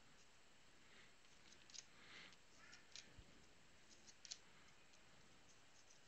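Faint ticks and soft rustling of trading cards being slid off a held stack one at a time by hand, a few light clicks standing out.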